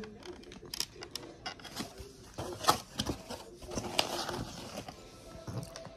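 Handling noise as the phone is moved about: scattered clicks, taps and rustles, with a few sharper clicks near the middle.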